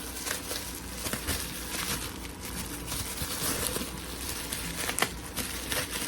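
A package being opened by hand: rustling of the packaging with many scattered clicks and taps.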